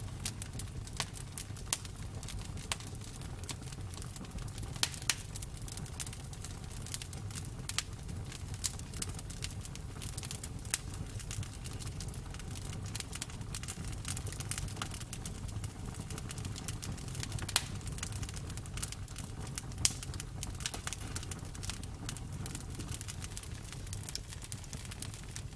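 Campfire burning, a steady low rumble with frequent irregular crackles and a few sharper pops from the wood.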